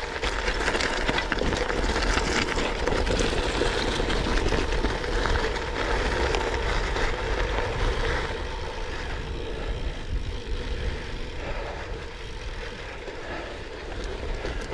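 Gravel bike being ridden over a rough gravel and sand track: tyres crunching and the bike rattling over stones, with a low wind rush on the microphone. It eases off a little about halfway through.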